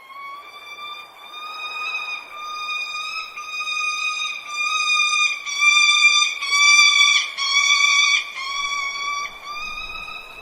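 Music: one high, steady note held for about ten seconds, its pitch wavering slightly in short strokes. It grows louder toward the middle and fades near the end.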